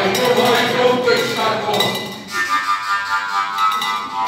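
A fujara, the long Slovak overtone flute, starts playing about halfway through, holding high notes with several overtones. Before it, voices and light clinking.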